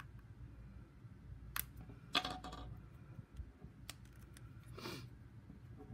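Handling noises on a wooden desk as small items are put down and moved: a few light clicks and knocks, the sharpest about two seconds in and a fainter one near the end.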